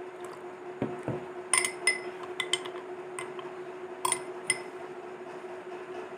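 A metal spoon stirring moringa powder into water in a drinking glass, clinking sharply against the glass about seven times, with two dull knocks about a second in.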